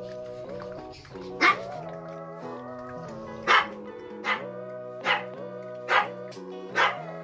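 A dog barking sharply six times, at intervals of about a second, over background music.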